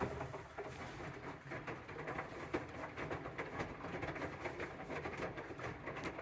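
AEG front-loading washing machine on a boil wash, its drum starting to turn suddenly: wet rags sloshing and tumbling in the water over the low hum of the motor.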